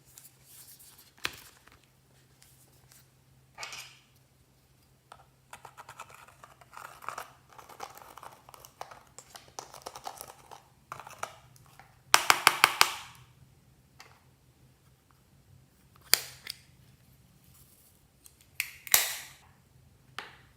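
Slime being squeezed and poked by hand, giving sticky crackles and small pops. A dense run of rapid loud crackles comes about two-thirds in, with single sharp pops near the start and end.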